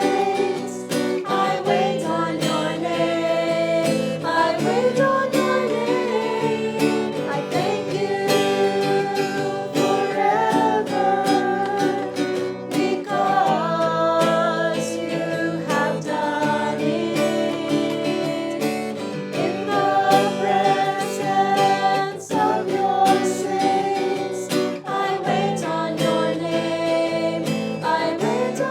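Worship song: singing over a strummed acoustic guitar.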